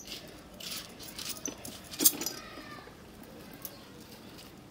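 A knife cutting raw jackfruit into pieces: a few sharp clicks and light metallic clinks, the loudest about two seconds in.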